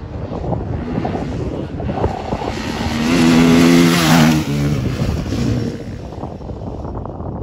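Rally dirt bike's engine accelerating past at speed. It is loudest about four seconds in as it passes close, then drops in pitch and fades as the bike rides away.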